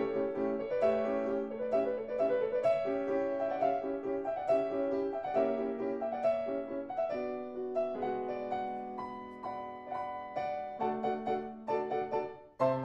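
Solo piano music playing a running accompaniment of melody notes over held chords. Just before the end it dies down briefly, then a new phrase comes in with deeper bass notes.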